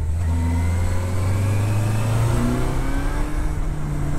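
Yamaha Fazer motorcycle engine pulling under acceleration, its pitch climbing steadily. About two seconds in the pitch drops as it shifts up, then climbs again.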